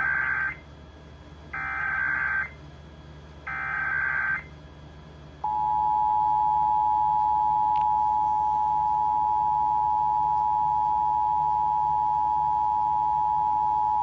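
Emergency Alert System test signal played through a portable HD radio's small speaker: three bursts of SAME header data, each about a second long and spaced about two seconds apart. About five seconds in, the steady two-tone EAS attention signal begins, announcing the national alert test.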